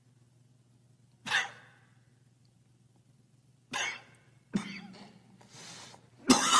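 A man coughing in place of the lion's roar: a short rasp about a second in, then harsher coughs that grow louder, with the loudest near the end.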